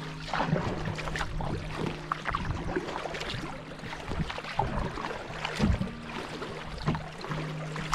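Canoe paddle strokes: water splashing and dripping off the blade as it dips and pulls. A low hum comes and goes underneath.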